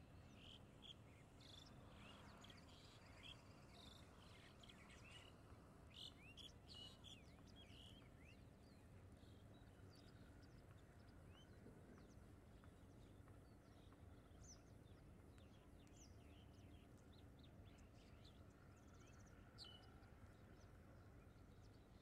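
Faint chirping of background birds: many short, high chirps, busiest in the first several seconds and then scattered, over a steady low outdoor background noise.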